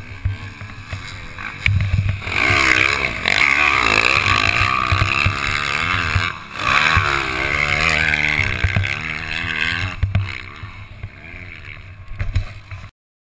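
Dirt bike engine revving up and down under hard acceleration, its pitch repeatedly climbing and falling. It gets loud about two seconds in, dips briefly near six seconds, eases after ten seconds, and cuts off abruptly near the end.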